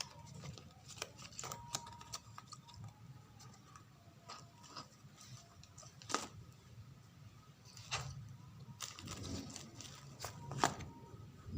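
Packaging and paper being handled during an unboxing: scattered soft rustles and small clicks, with a sharper click about six seconds in and another near the end.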